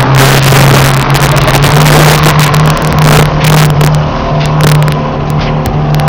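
Lada Niva engine running hard at steady high revs while driving over rutted, muddy grass, with frequent short knocks and jolts over the ground.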